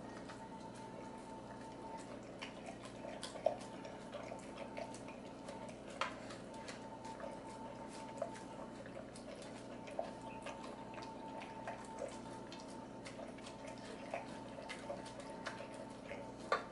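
XL American Bully eating raw meat from a stainless steel bowl: faint wet licking and chewing with scattered clicks against the metal bowl, over a steady low hum.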